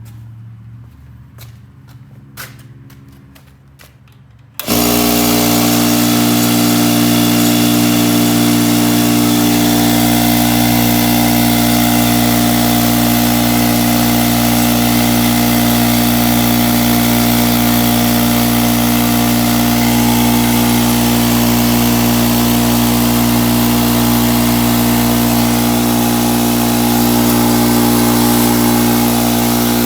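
A 33-gallon Craftsman air compressor switched on after a few faint clicks: about four and a half seconds in, its motor and pump start at once and then run loud and steady, pumping up the tank with the freshly rebuilt pump head, new seals and O-rings at the reed valves.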